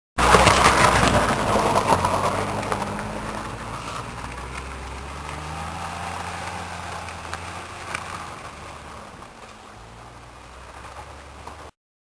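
A motor vehicle running close by, then fading steadily as it moves away; the sound cuts in and cuts off abruptly.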